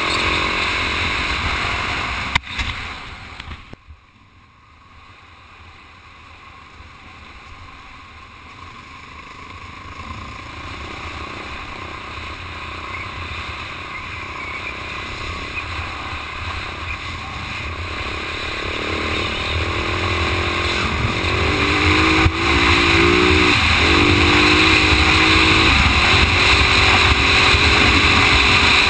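Husaberg 450 FE single-cylinder four-stroke dirt bike engine and wind noise heard from a helmet camera while riding on gravel. A sharp knock about two seconds in is followed by a sudden drop in sound as the bike slows, then the sound builds gradually as it picks up speed, with the engine note rising in pitch near the end.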